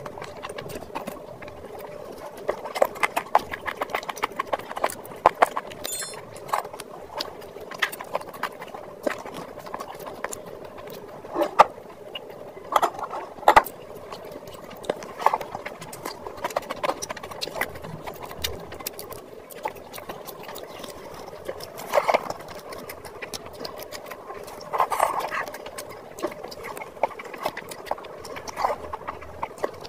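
Close-miked eating sounds: wet chewing and lip smacking of rice and mutton curry eaten by hand, with fingers squishing and mixing the rice. These come as irregular wet clicks and smacks, several to the second, with a few louder smacks.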